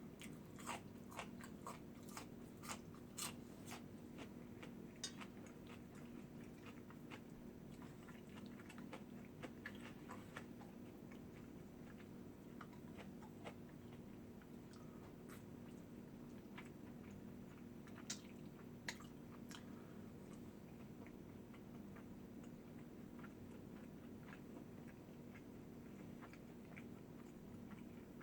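A person chewing and biting food close to the microphone, with sharp crunches and wet clicks that come thickest in the first few seconds and again about eighteen seconds in. A low steady hum runs underneath.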